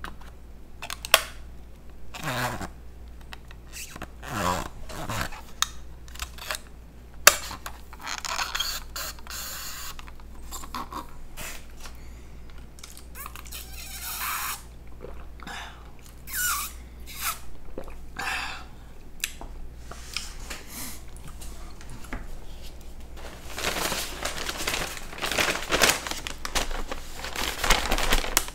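Close-miked eating: chewing, with wet mouth smacks and scattered clicks. Near the end comes a denser stretch of rustling, crinkling noise.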